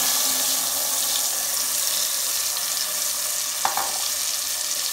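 Strained puree poured into hot butter and oil in a cooking pot, sizzling steadily as it hits the hot fat, with a single click about three and a half seconds in.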